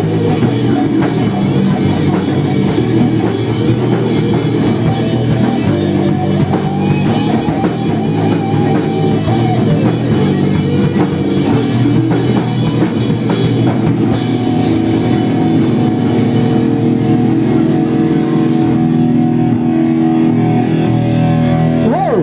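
Live rock band playing loud: electric guitars, bass guitar and drum kit together, without a break.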